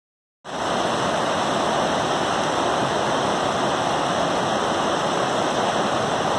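Rapids on a creek running high after rain: a steady rush of water over rocks that starts abruptly about half a second in.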